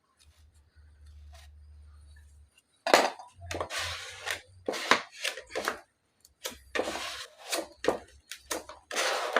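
Body filler and hardener being mixed with a putty spreader: repeated rough scraping strokes, one or two a second, starting about three seconds in after a faint low hum.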